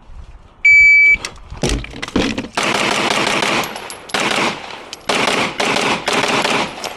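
A shot timer gives its half-second start beep, then a handgun fires rapid strings of shots in four or five quick clusters. This is a timed practical-shooting stage that the timer clocks at 5.82 s from beep to last shot.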